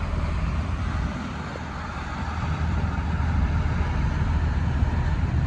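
Steady low rumble of a houseboat's engine under way, easing slightly for about a second near the start.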